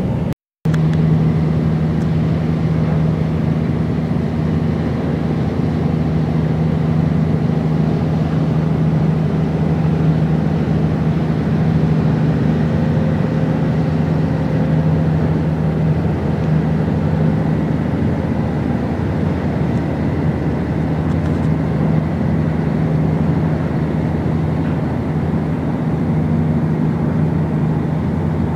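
Bulk carrier's diesel engine running as the ship passes close, a steady low drone with a constant hum over a noisy wash. The sound cuts out completely for an instant about half a second in.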